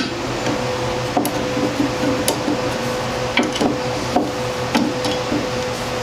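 Ratchet wrench on an extension turning a C-clamp's screw, giving short clicks about once a second as the clamp pushes the brake caliper piston back into its bore. A steady hum runs underneath.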